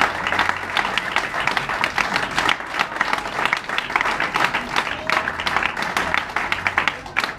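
An audience applauding: many hands clapping in a dense, irregular patter at the close of a live acoustic performance.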